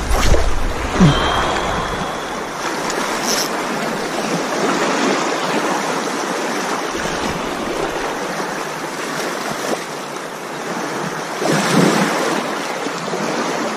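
Small waves washing over a pebble shore, a steady hiss of water with one larger wash near the end. Wind buffets the microphone in the first couple of seconds.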